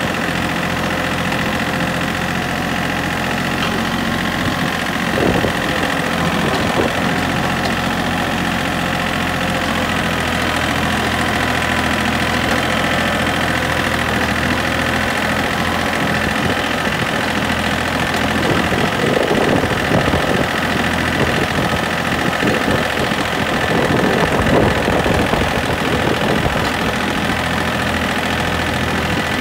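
Vehicle engine running steadily at low speed, heard from on board, with a stretch of knocks and rattles about twenty seconds in.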